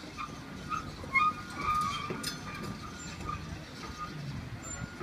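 Komatsu hydraulic excavator's diesel engine running with a low rumble, with a few short high squeals between about one and two and a half seconds in, the loudest about a second in.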